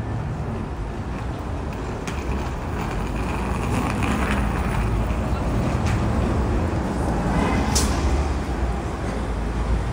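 City street traffic: vehicles passing with a low engine rumble that swells over several seconds, and a short sharp hiss about eight seconds in.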